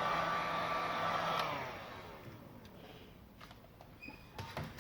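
Hot air blower warming a circuit board, running steadily with a hiss and whine, then switched off about a second and a half in, its pitch falling as the fan spins down. A few light clicks near the end.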